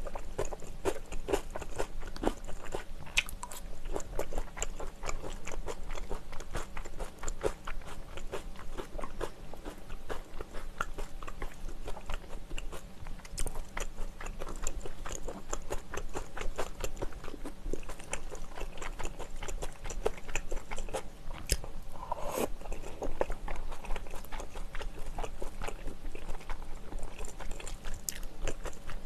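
Close-miked chewing of grilled onion and spicy bibim naengmyeon noodles: wet crunching and smacking, a dense run of small crisp clicks.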